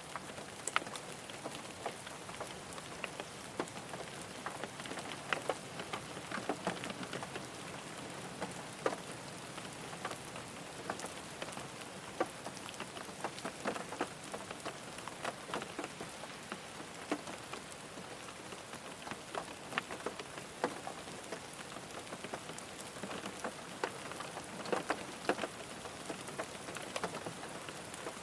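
Rain falling on a car: a steady hiss of rain with many irregular, sharper drop taps scattered through it.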